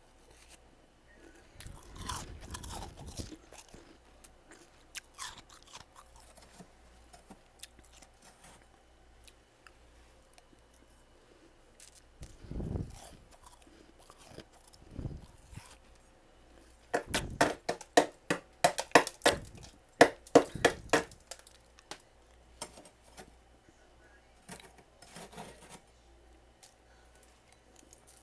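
Close-up crunching of freezer frost being bitten and chewed, in scattered bites with a dense run of loud crunches about two-thirds of the way through.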